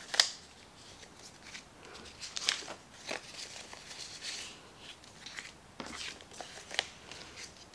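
Cardstock cards and paper envelopes handled on a tabletop: a scatter of light taps and short rustles and slides as cards are slipped into envelopes and set down, with the sharpest tap just after the start.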